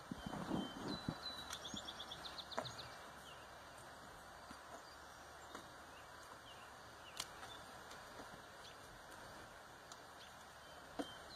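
Quiet outdoor ambience with a small bird singing: a rapid high trill about two seconds in and scattered chirps later. A few soft thuds in the first couple of seconds and a couple of sharp clicks.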